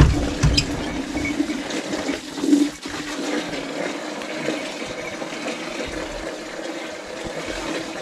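Water running steadily, with a couple of low thumps in the first second.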